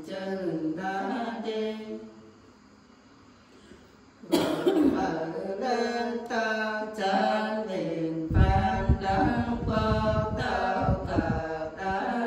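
Women singing a Nùng folk song without accompaniment, in slow, held, chant-like lines. The singing stops for about two seconds and then starts again, with a low rumble underneath for a few seconds later on.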